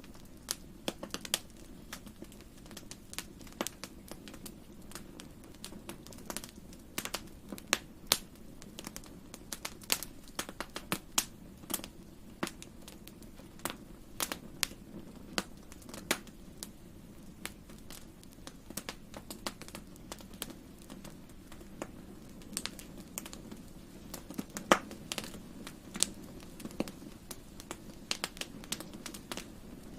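Wood fire crackling in a fireplace: irregular sharp pops and snaps, several a second, over a low steady rumble, with one louder pop about five seconds before the end.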